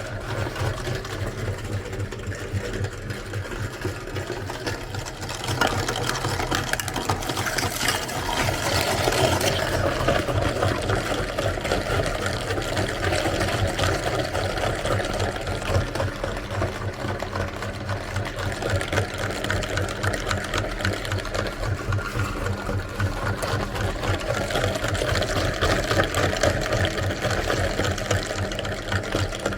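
Electric meat grinder running steadily, its motor humming with a fast, even rattle as it grinds.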